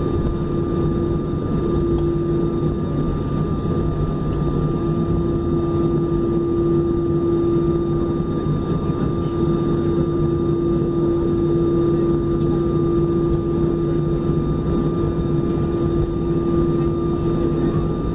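Airliner's turbofan jet engines running steadily at low thrust while taxiing, heard from inside the cabin: an even rumble with a constant whine.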